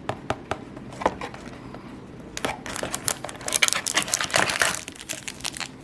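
Foil Yu-Gi-Oh! booster packs crinkling as they are handled and pulled out of their box. A few light clicks of handling come first; the crinkling starts about two and a half seconds in and runs for a couple of seconds.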